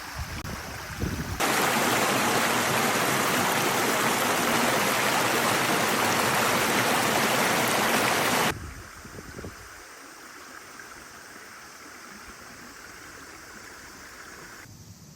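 Flowing river water rushing loudly from about a second and a half in, then cutting off abruptly about eight and a half seconds in, leaving a much quieter steady hiss.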